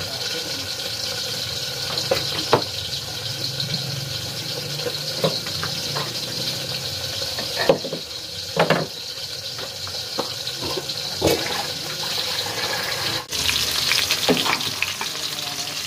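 Chopped shallots and chillies sizzling steadily in hot oil in a wok, with a few knocks and clinks of utensils.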